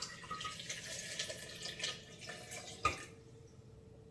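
Coconut water poured from a glass measuring jug into a blender jar, splashing onto pineapple chunks, for nearly three seconds. A single sharp knock comes as the pour ends.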